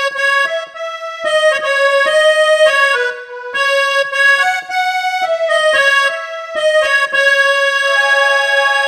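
A melody played on a Nektar LX61+ MIDI keyboard driving a sampled instrument tone: held notes one after another, with a few two-note chords, changing about every half second.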